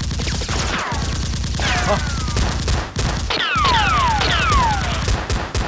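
Bursts of rapid automatic gunfire sound effects, laid over a mock firefight. From about halfway, several falling whines cut through the shots.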